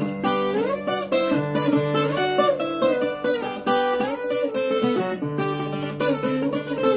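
Viola caipira (ten-string Brazilian folk guitar) played solo in fast plucked runs along the neck, with a couple of sliding notes over a held low note, a toque depicting a deer running.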